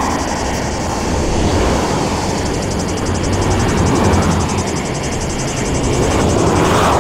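Motorway traffic passing at speed, a continuous rush of tyre and engine noise that swells and fades as vehicles go by one after another.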